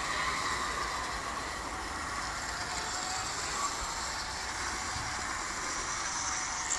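Garden-railway model train running along its track, a steady sound of motor and wheels on rail.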